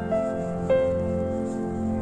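Instrumental background music with held notes; a new note comes in under a second in.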